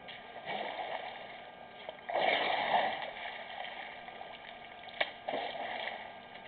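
African elephant drinking: water gushing and splashing in several swells as the bull draws it up in its trunk and squirts it into its mouth. The loudest swell comes about two seconds in, and there is one sharp click near the five-second mark.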